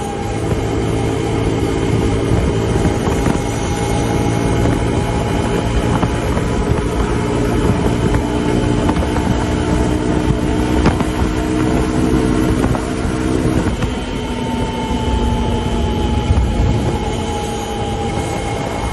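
Suzuki DR150's single-cylinder engine running hard at speed, with wind and road noise around it. About two-thirds of the way through the engine note drops and then sinks slowly.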